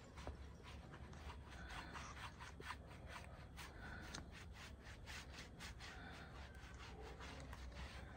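Paintbrush scrubbing wood stain onto the end grain of a cut tree stump: faint, quick scratchy strokes, several a second.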